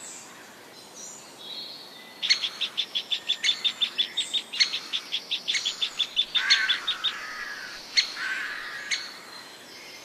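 Great spotted woodpecker calling a fast run of short, high, repeated notes, about six a second, starting about two seconds in, with a few lower, rougher sounds mixed in toward the end. The calling comes as a second woodpecker lands at the nest hole and the young bird tries to drive it off.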